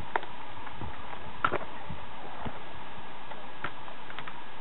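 A few scattered taps and knocks of a forearm crutch tip and prosthetic feet on stone steps during a slow climb, over a steady hiss.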